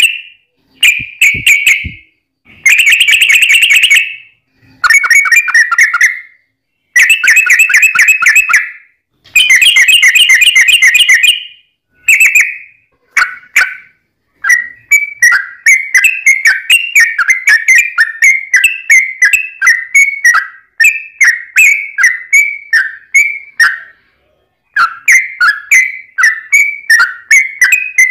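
Yellow-vented bulbul (trucukan) song played loud. First come several rapid, chattering phrases of a second or two each, split by short pauses. About halfway in it turns into a long run of quick downward-slurred notes, a few a second, broken once by a brief pause near the end.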